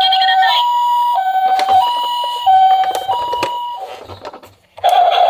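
Japanese ambulance two-tone hi-lo siren, a steady high and low pitch alternating about every 0.7 seconds, with sharp clicks and clatter of the minicars. The siren fades out about four seconds in, and a louder, noisier sound starts near the end.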